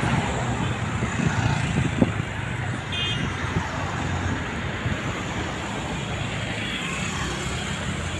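Steady road traffic passing, with a brief high beep about three seconds in.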